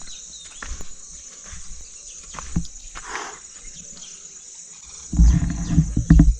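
Crickets chirring steadily in the background, with scattered rustles and clicks. About five seconds in, a loud low rumble on the microphone takes over for just over a second.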